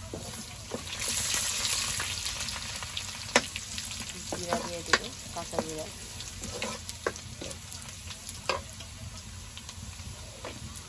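Oil sizzling in a blackened iron karai as a steel ladle stirs sliced onion for tempering dal, with the ladle clicking and scraping against the pan. The sizzle swells about a second in, and the clicks come irregularly, a few every couple of seconds.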